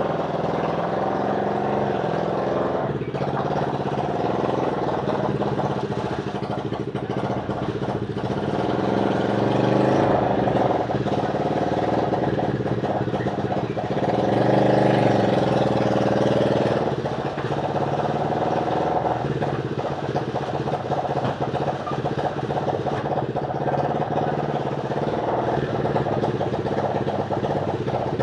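Motorcycle engine powering a small homemade car, running steadily and revving up twice, about ten and fifteen seconds in.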